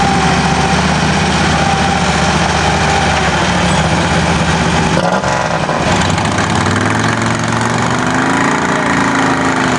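Two lifted garden-tractor engines running hard as the machines push against each other nose to nose. The engine note shifts about halfway through and rises and falls again near the end.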